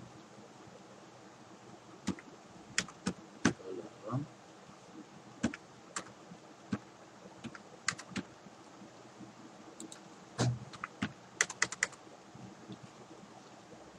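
Keystrokes on a computer keyboard: irregular single clicks with pauses, then a quick run of keys near the end.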